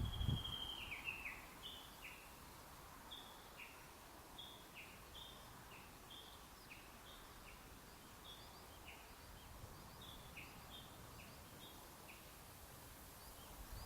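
Japanese bush warbler giving its tani-watari ('valley-crossing') call: a long falling whistle, then a faint, rapid run of short two-note 'ke-kyo' phrases, each stepping from a high note down to a lower one, repeated over and over.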